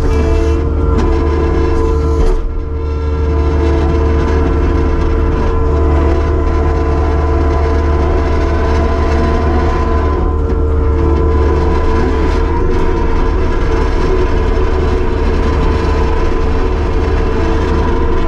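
Kubota SVL75-2 compact track loader running under steady throttle: a constant diesel engine hum with steady whining tones over it, dipping briefly about two seconds in.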